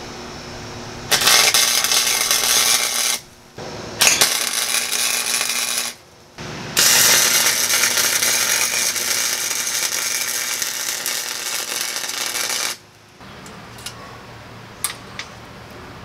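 Wire-feed welder arc crackling as it welds steel tubing: three runs, about two seconds, two seconds and then six seconds long, with short breaks between them. Near the end it goes quieter, with a few small clicks.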